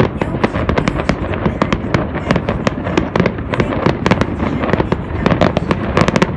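Fireworks going off in quick succession, a dense run of sharp cracks and pops over a continuous low rumble, with a thick cluster of cracks near the end.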